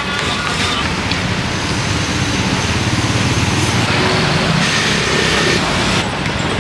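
Road traffic: motor vehicles going by, a steady rush that grows louder through the middle and drops back just before the end.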